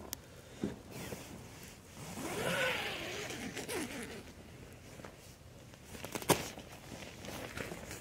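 Tent door zipper being pulled open from inside, a rasping zip that wavers up and down in pitch from about two to four seconds in. A single sharp click comes about six seconds in.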